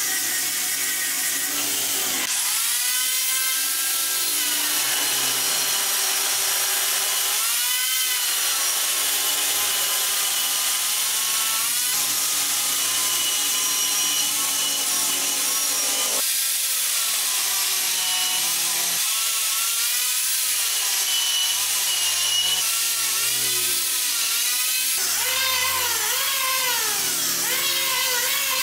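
Angle grinder with a sanding disc grinding and shaping a curved wooden stair piece, its motor whine dipping and recovering in pitch as it bites into the wood. Near the end an electric hand planer takes over on a round wooden block.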